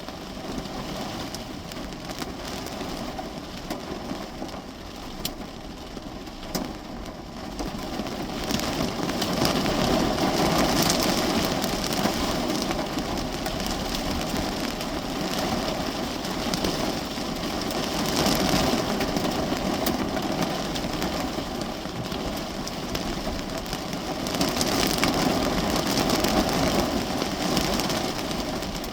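Heavy rain drumming on a car's roof and windows, heard from inside the cabin, swelling and easing in waves with scattered sharper taps.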